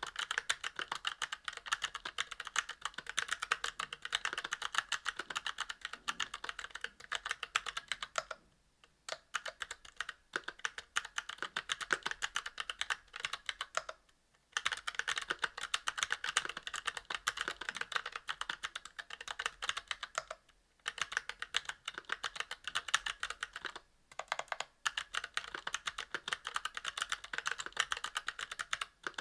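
Fast, steady typing on a mechanical keyboard with Kailh Box Crystal Royal tactile switches, a brass plate and GMK keycaps: rapid clicky-clacky keystrokes, broken by a few short pauses.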